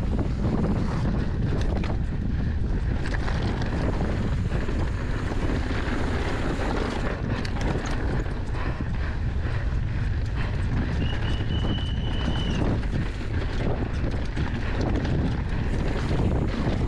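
Wind buffeting the microphone as a mountain bike rattles down a rough downhill course at speed, with many small knocks and clicks from the bike and ground. About two-thirds of the way through, a high steady tone sounds for a second or so.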